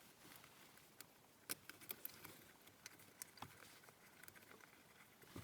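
Near silence with faint scattered clicks and light taps of plastic parts and wiring being handled as the removed steering wheel is moved.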